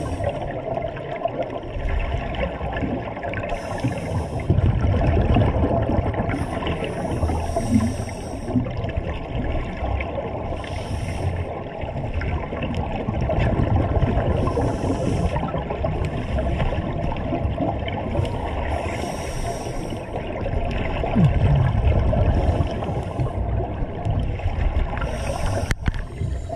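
Underwater scuba breathing: a regulator hissing with each breath every few seconds, and exhaled bubbles gurgling over a steady muffled water rumble.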